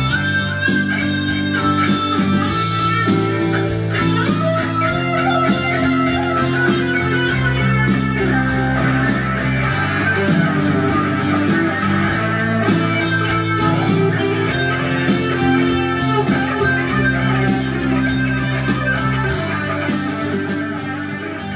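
Electric guitar music with a steady beat, fading out near the end.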